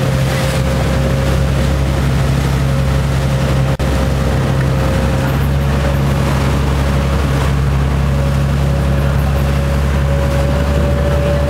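Sightseeing boat's engine running steadily, a constant low drone with a steady higher hum above it, over the rush of its wake churning alongside. The sound drops out for an instant about four seconds in.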